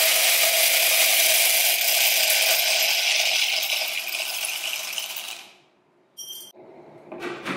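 Coffee beans poured into a coffee grinder's clear plastic hopper: a steady rattling that tapers off about five seconds in. It is followed by a short click and a light knock near the end.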